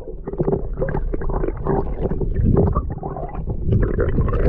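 Water heard from under the surface: muffled sloshing and rumbling, with many irregular knocks and splashes and no clear high sounds.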